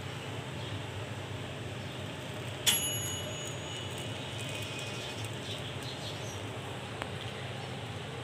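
A steady low hum with one sharp clink of a utensil against cookware about two and a half seconds in, ringing briefly as it fades, and a faint tap near the end.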